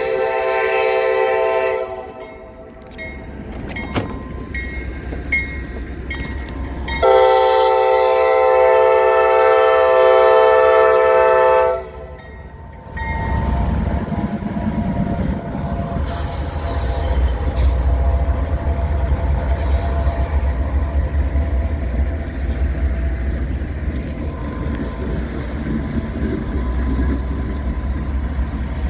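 Diesel freight locomotive horn sounding for a grade crossing: one blast ending about two seconds in and a long blast of about five seconds a few seconds later. The lead GE AC44C6M diesel locomotives then pass, their engines rumbling and their wheels clicking over the rail joints.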